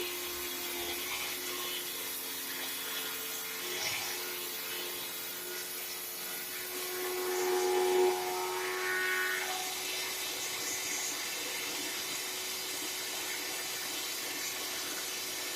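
Electric motor of a seated wood spindle moulder running steadily with a constant hum. It grows louder for a moment about halfway through, then settles back to a steady run.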